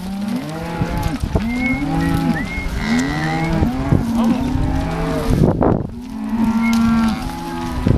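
A herd of cows mooing, many long calls overlapping one another throughout.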